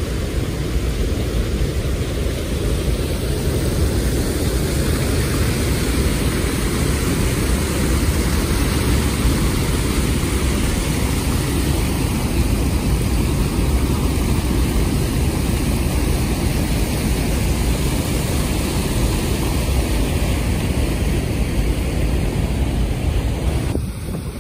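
Water spilling over a stepped concrete dam and rushing over rocks, a steady, loud roar of falling water with no break.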